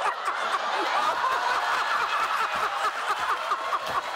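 A theatre audience laughing, many voices at once, a steady wave of laughter without a break.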